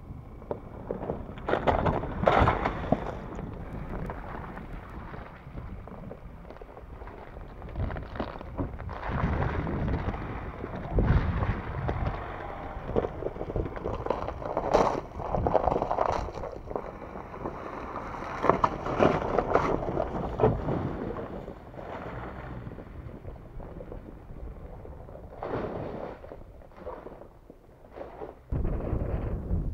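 Ford Ranger Raptor pickup driving through mud and puddles close by: engine under throttle with tyres splashing, swelling and fading several times as it comes past and pulls away. Wind buffets the microphone.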